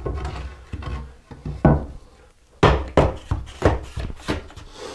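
Magnesium trowel slapping and packing stiff sand-mix mortar (deck mud) for a shower pan: a run of sharp slaps, a lull about two seconds in, then a quicker series of slaps.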